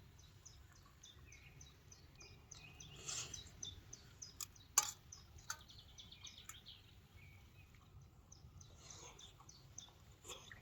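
Small birds chirping in a quick run of short, high, evenly repeated notes, over a faint low outdoor rumble. A few sharp clicks break in, the loudest about halfway through.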